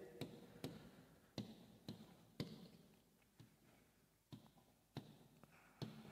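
Faint pen taps on an interactive whiteboard screen as digits are written, about ten irregular light clicks.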